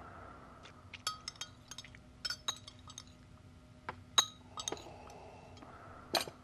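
Tableware clinking: light, irregular taps of cutlery on glass bowls and glasses, about fifteen in all, over a faint steady hum.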